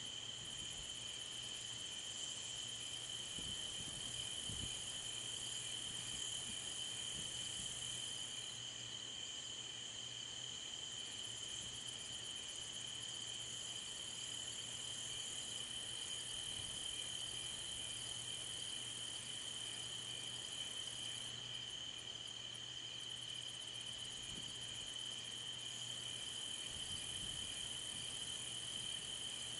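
Chorus of night insects, crickets, trilling steadily in a continuous high-pitched drone, with a faint low hum underneath.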